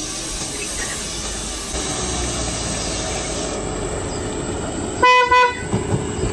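Car driving with steady engine and road noise, then two short, loud blasts of its horn about five seconds in, followed by a few knocks. The horn is sounded at something blocking the road.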